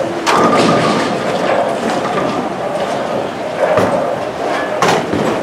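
Bowling alley din: balls rolling down the wooden lanes and pins crashing, a steady rumble broken by three sharp knocks.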